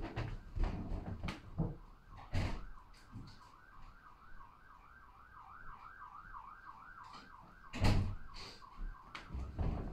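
A faint emergency-vehicle siren wailing up and down about three times a second for around five seconds. Scattered knocks and thumps come from someone moving about the house, the loudest a heavy thump near the end of the siren.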